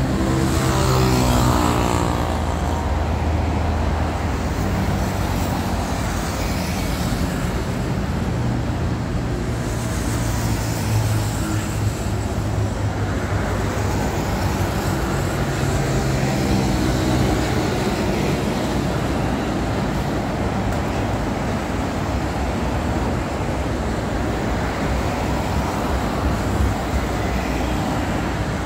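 Steady multi-lane expressway traffic: cars, vans and lorries passing at speed with engine rumble and tyre noise. Near the start a passing vehicle's engine note falls in pitch as it goes by.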